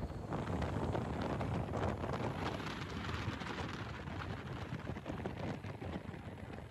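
Wind blowing across the microphone, an uneven rushing noise in gusts.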